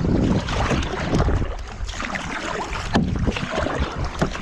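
Kayak paddles splashing through the water with water sloshing against the hull, under steady wind rumble on the microphone. There is a sharp knock about three seconds in and another near the end.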